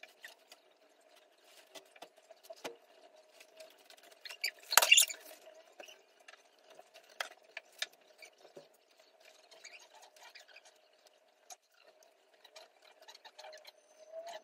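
Faint taps and scratches of hands and a knife handling soft dough slices on a granite worktop, over a faint steady hum, with one louder clatter about five seconds in.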